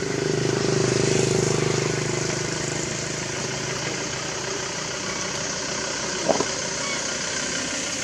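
A motor vehicle engine running steadily, swelling over the first two seconds and then settling to an even drone. A short high squeak about six seconds in.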